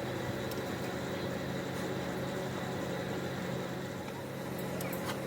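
Road roller's diesel engine idling steadily, an even hum that holds the same pitch throughout.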